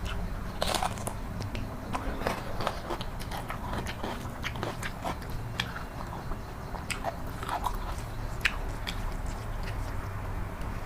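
Close-miked chewing of egg curry: irregular wet smacks and soft clicks of biting and mastication, over a steady low hum.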